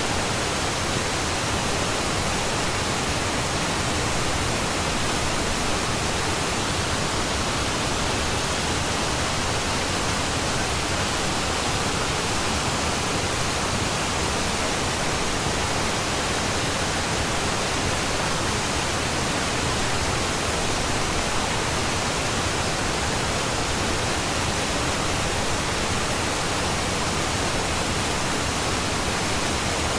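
Steady, even pink-noise-like hiss with no change in level or pattern: the masking noise layer of a subliminal audio track.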